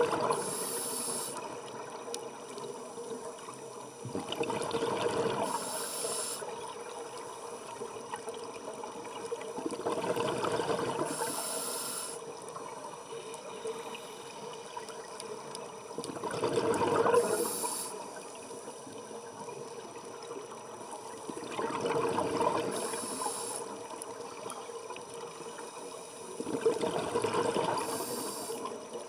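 Scuba diver breathing through a regulator underwater: a bubbling rush of exhaled air swells and fades about every five to six seconds, each breath ending in a short high hiss.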